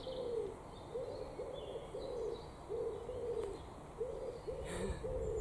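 Common wood pigeon cooing: a steady run of short, low, repeated coos in phrases.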